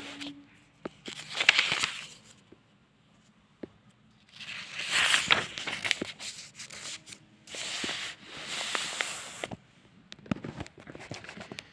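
Paper rustling as the pages of a paperback book are handled and shifted, in three bursts of a second or two each, with a few light clicks near the end.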